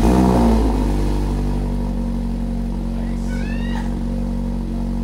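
2016 Mazda MX-5 Miata ND four-cylinder engine breathing through a Goodwin Racing RoadsterSport Superstreet exhaust with its baffle removed, catching on its first start: a quick flare in revs that falls away within the first second, then a steady idle. About three seconds in, a person gives a short, high, rising squeal of delight.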